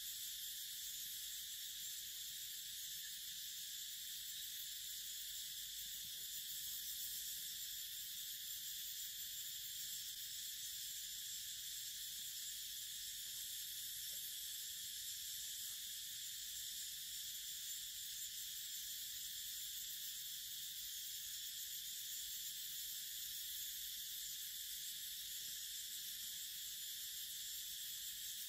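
A steady high hiss that does not change, typical of a forest insect chorus, with faint, scattered soft sounds of a monkey biting and chewing mango beneath it.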